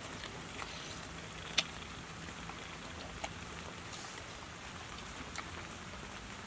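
Close eating sounds: soft lip smacks and chewing clicks as a woman eats meat by hand, scattered and irregular, with one sharper click about a second and a half in, over a steady low hiss.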